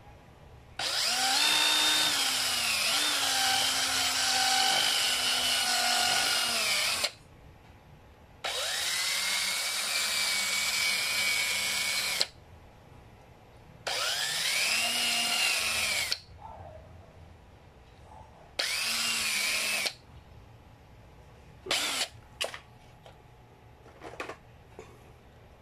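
Power drill running in four bursts, the first about six seconds long and the rest shorter, its whine dipping and rising in pitch within each burst. A few light clicks follow near the end.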